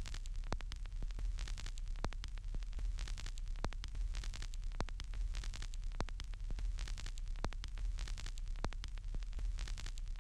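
Gramophone record surface noise once the music has ended: a steady hiss and low hum with frequent, irregular clicks and pops as the needle runs on in the groove.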